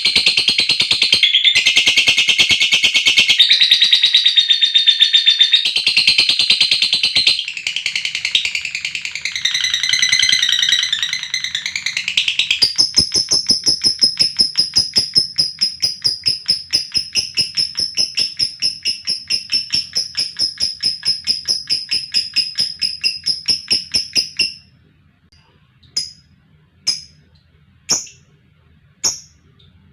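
Lovebird giving a long 'ngekek' chattering trill, a rapid, high, machine-gun-like run of notes. For the first twelve seconds it is loud and shifting in pitch. It then settles into evenly repeated notes that slowly fade out about 24 seconds in, followed by single short chirps about once a second.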